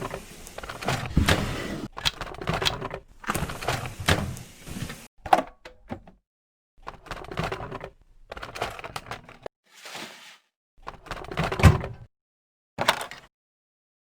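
A string of short, chopped-together clips of clicking, clacking and thunking, like hard parts being handled and knocked. They are separated by sudden cuts to dead silence, several of them in the second half.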